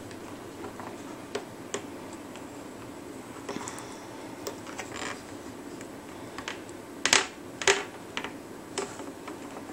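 Scattered small plastic clicks and taps from a hook working rubber bands on a plastic peg loom, with two louder clicks about seven seconds in.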